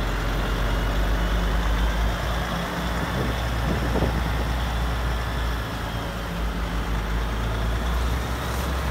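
Steady low diesel-like engine drone from the radio-controlled construction models. A brief rising-and-falling glide comes about three to four seconds in.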